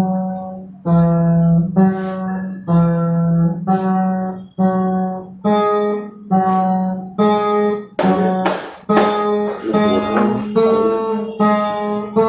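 Acoustic guitar playing a slow line of notes, about one a second, with a low note ringing beneath them. From about eight seconds in, the notes are strummed harder and sound brighter.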